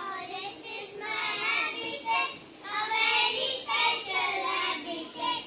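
A small group of young girls singing together into a microphone.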